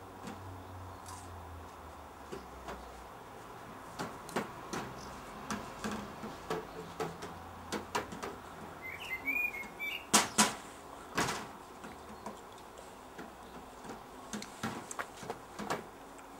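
Scattered knocks and taps, with two louder ones about ten and eleven seconds in, and a bird chirping briefly about nine seconds in.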